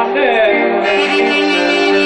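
Greek Vlach folk music from a band led by clarinet with violin: an ornamented melody line bends and slides, then settles into long held notes over a steady accompaniment.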